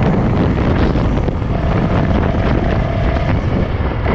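A 450 dirt bike's engine running steadily under way, mixed with wind rush on the microphone.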